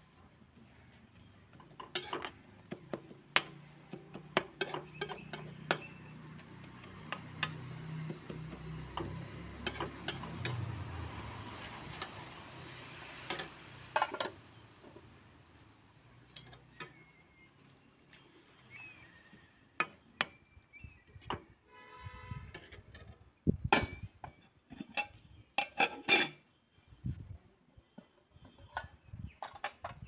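Metal ladle clinking and scraping against an iron wok as chicken and fenugreek are stirred over a fire, with more sharp clinks of steel pots and utensils being handled.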